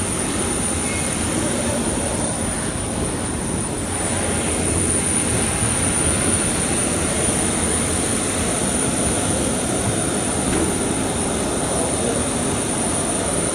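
Steady aircraft noise at an airport: a constant rushing hum with a thin, high, unbroken whine above it.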